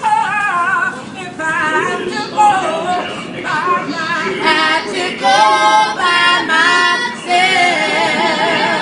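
Two women and a girl singing together a cappella, in unaccompanied phrases with short breaks between them.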